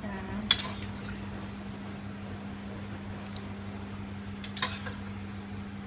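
Metal slotted spoon clinking against an enamel pot while stirring shrimp in water: two sharp clinks, about half a second in and again about four and a half seconds in, with a fainter tap between them. A steady low hum runs underneath.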